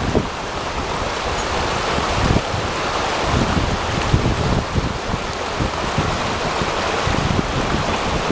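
Glacial meltwater river rushing over rocks in a steady roar, with gusts of wind buffeting the microphone.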